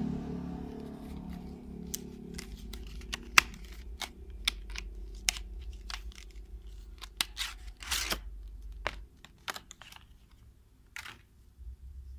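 Plastic and card knife packaging crinkling and tearing as a kitchen knife is unwrapped: an irregular run of sharp crackles and snaps that thins out after about nine seconds.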